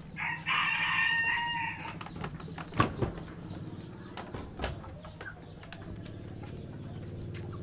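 A rooster crows once near the start, a pitched call lasting about a second and a half. A few sharp knocks follow, the loudest about three seconds in, over a low steady hum.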